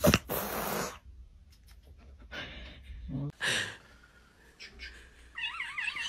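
A tabby kitten sneezes once, a sharp, loud burst at the start. A few softer breathy puffs follow, and near the end comes a wavering high-pitched sound.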